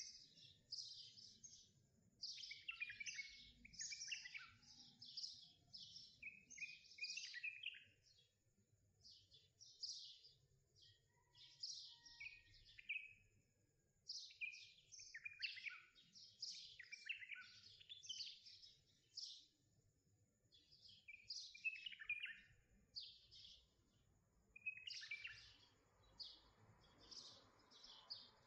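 Small birds chirping and twittering in quick runs of short, high calls, with brief pauses between runs.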